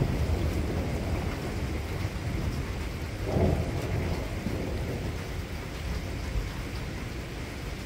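Thunder rumbling low and continuously, with a louder surge a little over three seconds in that slowly dies away.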